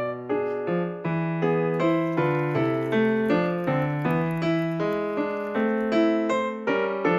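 Background piano music: a gentle melody of evenly paced notes over a repeating bass.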